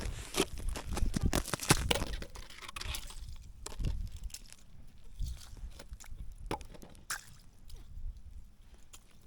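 Footsteps crunching in snow, thick for the first few seconds, then giving way to scattered crunches and small slushy handling sounds.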